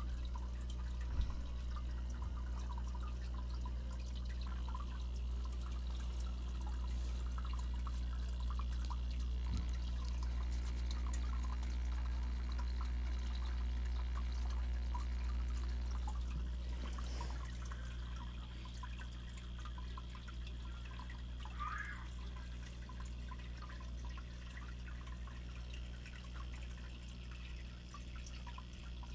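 Aquarium water bubbling and trickling over a steady low electrical hum from the tank's pump. There is one sharp click about a second in.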